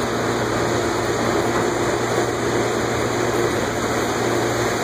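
Champion commercial multi-tank dish machine running steadily: a constant motor and pump hum with a steady tone, under an even rush of water noise.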